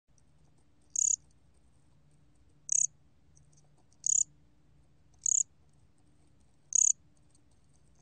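A 곰귀뚜라미 cricket chirping, recorded at 23 °C: five short, high-pitched chirps with uneven gaps of about one to two seconds between them.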